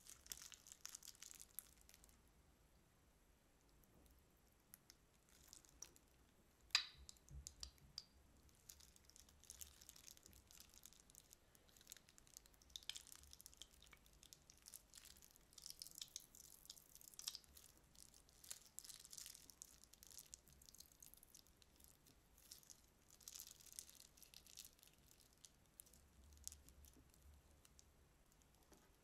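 Glitter slime being squeezed from a plastic piping bag onto clear slime: faint, scattered sticky crackles, with one sharp click about seven seconds in.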